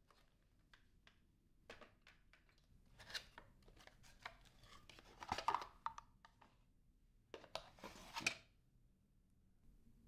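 Cardboard packaging being handled while parts are unpacked: faint scattered rustles, scrapes and light knocks, loudest in two bursts around the middle and near the end.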